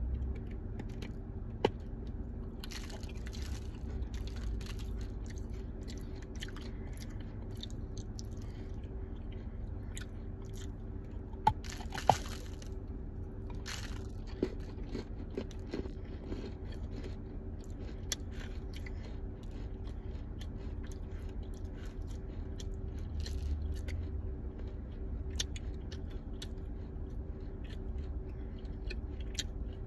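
A ball of dried clay crunching and crumbling as it is crushed by hand, with scattered crackles and a few sharp cracks, the loudest a pair about a third of the way in. A faint steady hum runs underneath.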